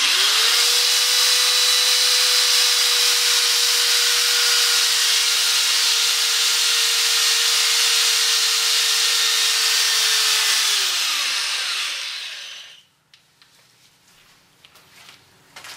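Power drill spinning a P800 sanding disc against a plastic headlight lens: a steady motor whine over a loud sanding hiss, the fine-grit stage that takes out the small scratches left by coarser sanding. The motor winds down and stops about eleven seconds in.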